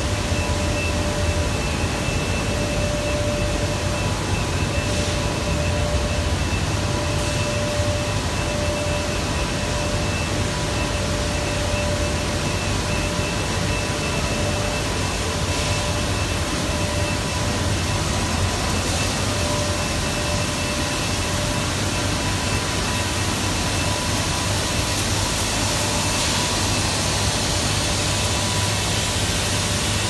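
EPDM rubber extrusion and microwave vulcanization line running: a steady machinery rush with a low hum and a few thin, steady whines.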